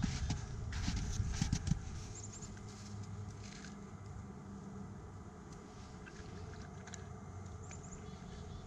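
Bernese mountain dog chewing and crunching mouthfuls of snow, with a run of crisp crunches in the first two seconds that then drops to fainter, scattered crunches.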